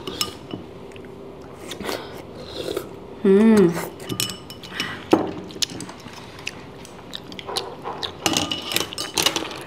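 Chopsticks and spoons clicking and clinking against bowls and a cup while people eat soup, with a short hummed voice sound about three and a half seconds in.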